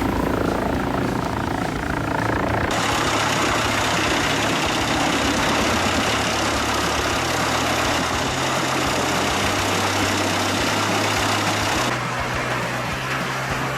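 Wood chipper running, its engine steady under a dense grinding noise. The sound changes abruptly about three seconds in and again near the end.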